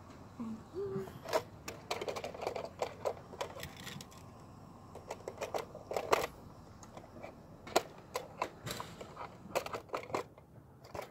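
Irregular plastic clicks and rattles from handling a toy RC truck's handheld remote controller, its sliding phone holder being pushed in and out.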